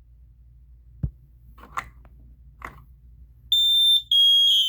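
A Kidde KN-COSM-IB combination smoke and carbon monoxide alarm being tested. A thump comes about a second in, then two short rustles. About three and a half seconds in the alarm's loud, high-pitched horn starts, breaks off for a moment, and sounds again.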